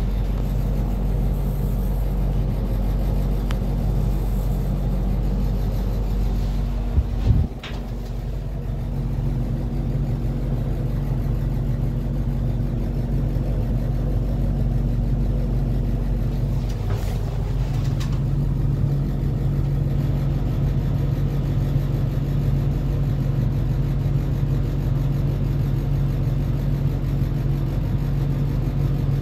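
Steady low mechanical hum inside an enclosed Ferris wheel gondola, with a brief knock about seven seconds in.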